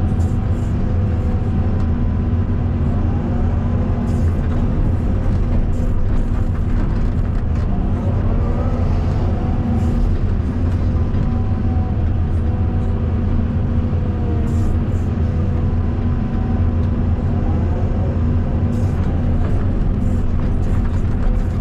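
Caterpillar 320D2 hydraulic excavator's diesel engine running steadily under working load, with a hydraulic whine rising and falling in pitch as the boom and bucket dig and load material.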